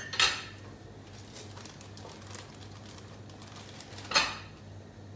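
Bread toasting in garlic butter in a frying pan, with a faint crackling sizzle. Two sharp clatters come, one just after the start and one about four seconds in.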